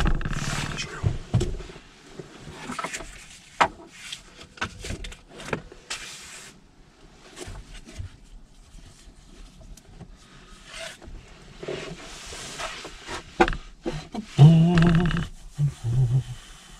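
Clothing rustling and small knocks and clicks as people shift about on a van's back seat, with a short, low voice sound, like a grunt, a couple of seconds before the end.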